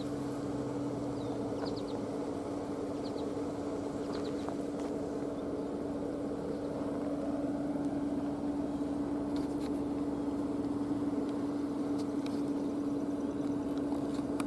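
Federal Signal 508-128 outdoor warning siren sounding its steady alert tone, one held pitch that neither rises nor falls.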